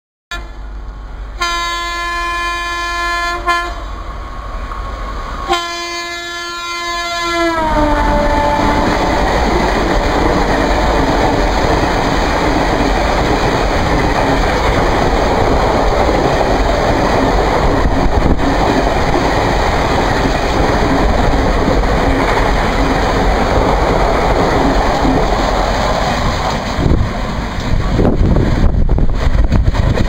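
WAP-4 electric locomotive's horn sounds two long blasts, the second dropping in pitch at its end as the locomotive passes. Then the 23-coach express runs through at speed, a steady loud rush of wheels on rails for about twenty seconds that eases near the end as the last coach goes by.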